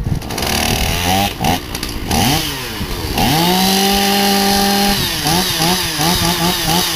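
Chainsaw engine revving up, held at high revs for a couple of seconds, then blipped up and down several times in quick succession.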